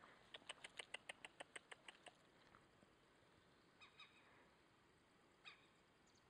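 A faint, rapid run of about a dozen sharp clicks, some six a second, lasting under two seconds. A few fainter ticks follow later.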